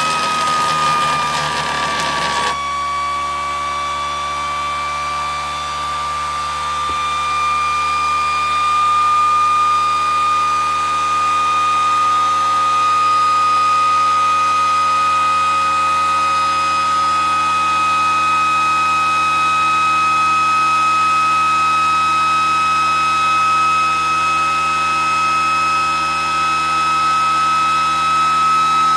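Pulse motor running at high speed, a steady high-pitched whine with many overtones. A rough rubbing noise covers the first two or so seconds while the pitch sags a little; after it stops the whine climbs slowly and then holds steady.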